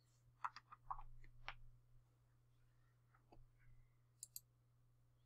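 Near silence: a low steady hum with a handful of faint clicks, two quick ones about four seconds in.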